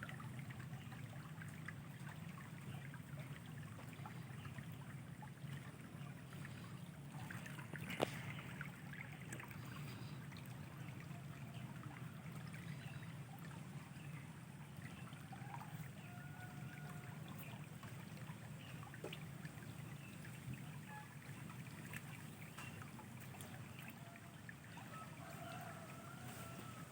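Faint, steady trickle of flowing stream water, with a single sharp click about eight seconds in.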